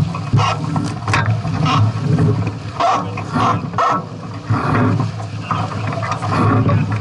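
Gusty wind buffeting the microphone over water noise on a sailing catamaran: a loud, uneven rumble with short crackles throughout.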